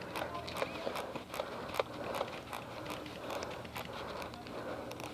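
Scattered sharp clicks and snaps, a few every second at irregular spacing, over a steady rustle.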